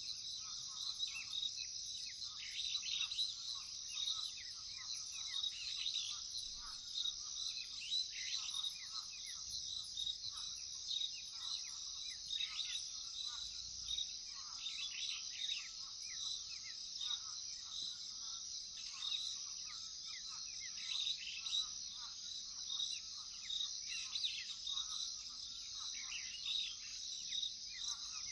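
Steady high-pitched trilling of crickets, with many birds calling over it in short chirps and falling notes throughout.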